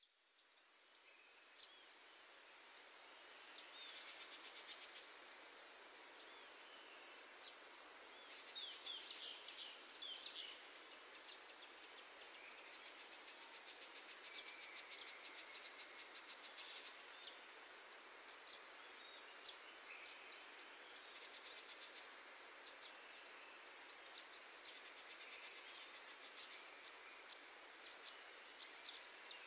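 Birds chirping: scattered short, high chirps every second or two, with a quick run of notes about eight to ten seconds in, over a faint steady hiss.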